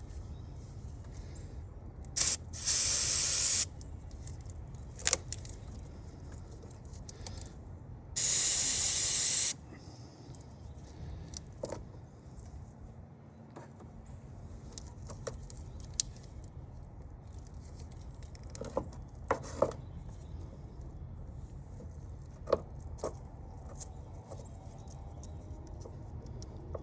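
Aerosol brake cleaner sprayed in two bursts of about a second each, several seconds apart, to clean corrosion off a battery cable end. Scattered small clicks and knocks sound in between.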